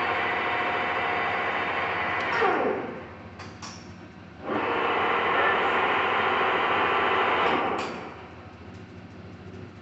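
Lodge & Shipley Powerturn engine lathe's spindle drive running with a steady whine and rush. It shuts off about two and a half seconds in, its pitch falling as it coasts down, is started again about four and a half seconds in, and runs until it winds down again near the end.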